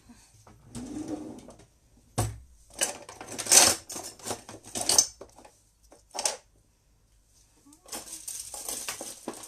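Dishes and cutlery clattering as they are handled: a run of sharp knocks and clinks, the loudest a few seconds in, and a longer rattle near the end.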